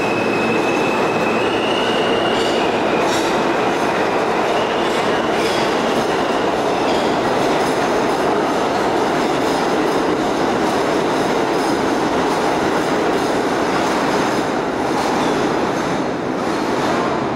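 New York City subway R train running along the platform and out of an underground station: a steady loud rumble of wheels on rail with clicks over the rail joints. In the first couple of seconds a high whine steps up in pitch, and the sound drops slightly near the end as the train pulls away.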